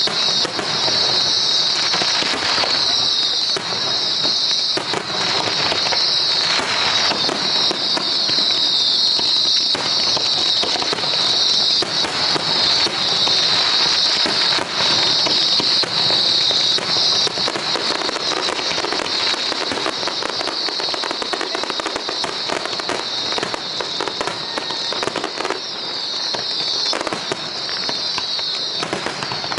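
Fireworks display going off continuously, a dense run of pops and crackling over a steady high hiss, easing slightly in the second half.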